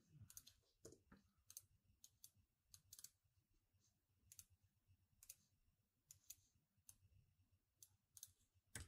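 Near silence with faint, irregular computer mouse clicks, about two a second, with a slightly louder click near the end.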